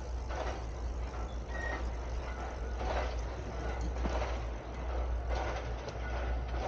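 Outdoor street ambience: a steady low rumble with soft thuds at a regular pace of about one every second and a quarter, and one brief high beep about one and a half seconds in.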